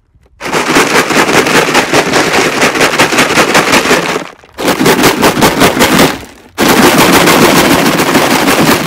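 Rocks rattled hard inside a plastic jug, a fast, loud rattle of many quick knocks. It comes in three bouts, with short breaks about four seconds in and just after six seconds.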